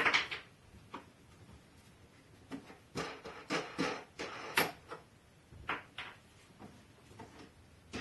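Thin PETG plastic sheet being handled in its wooden forming frame: irregular crackles and knocks as the sheet flexes under gloved hands.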